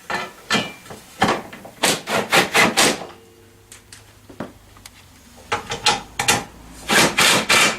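Sharp metallic knocks and clicks in quick clusters as a metal scooter rear rack is set in place and its bolts are started.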